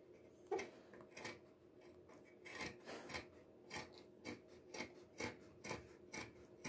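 Fabric scissors cutting through heavy denim: a steady run of short snips, about two a second.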